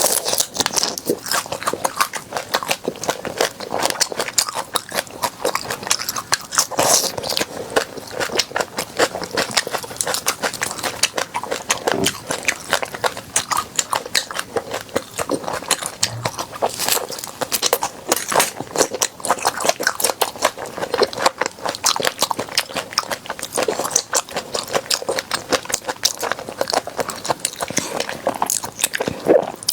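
Close-miked chewing of crunchy food: a dense, steady run of wet crunches and crackles with the mouth working continuously.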